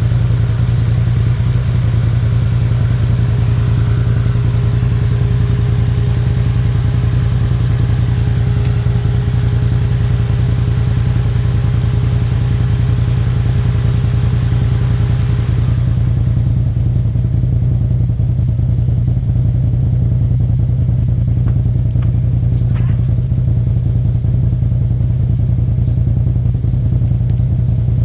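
Polaris RZR Turbo side-by-side's engine running steadily at low speed as it crawls over rocks, a constant low drone. A higher whine and hiss over it fall away about halfway through, leaving the low drone.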